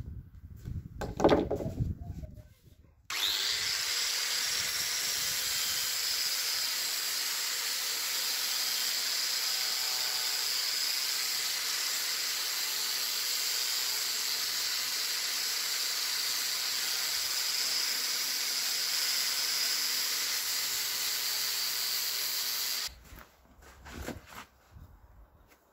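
A few hacksaw strokes on wood. About three seconds in, an angle grinder starts on the wooden beam, runs steadily with a high whine for about twenty seconds, and stops suddenly. A few light knocks follow near the end.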